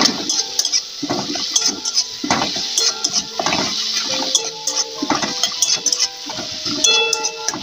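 Metal spatula scraping and clattering against a metal kadai in repeated strokes as chopped tomatoes and bay leaves are stirred in oil.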